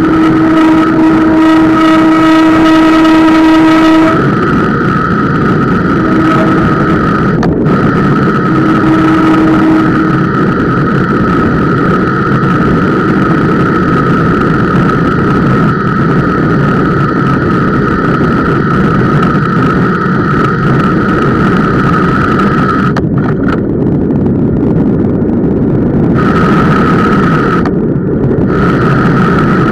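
Bicycle disc brake squealing under partial braking: a steady high squeal that drops out briefly a few times, after a lower squeal with overtones in the first four seconds. Beneath it, the familiar rushing of semi-metallic brake pads, strengthened by vibration carried into the camera mount. The owner puts the squeal down to the Centerlock rotor mounting, which he calls typical.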